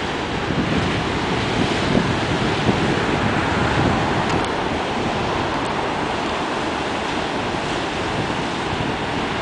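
Ocean surf breaking and washing onto the beach in a steady, dense rush, with wind buffeting the microphone.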